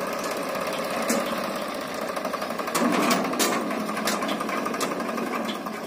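Eicher 5660 tractor's three-cylinder diesel engine running steadily with a fast, even clatter as it pulls its trolley. Several sharp knocks sound over the engine, loudest around the middle.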